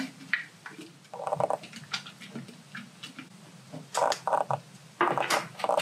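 A stick stirring and pressing packing peanuts in water inside a glass jar, tapping and clicking against the glass, with a few short squeaks about a second in, near four seconds and near five seconds. The peanuts are breaking down into foam as they are stirred.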